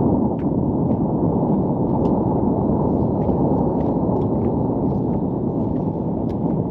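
Strong wind buffeting the camera's microphone: a loud, steady low rumble, with a few faint clicks over it.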